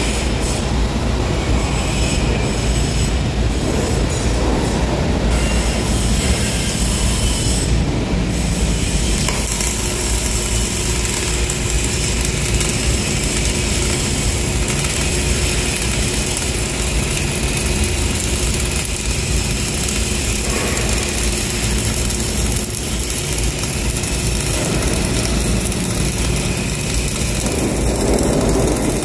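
Flux-cored arc welding in the vertical position, the arc sizzling steadily at a setting of about 24 volts and 200 amps.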